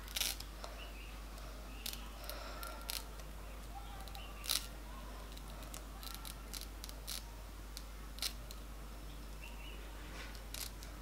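Small scissors snipping through a wig's lace front, a scattering of faint, irregular snips roughly a second apart as the lace is trimmed along the hairline.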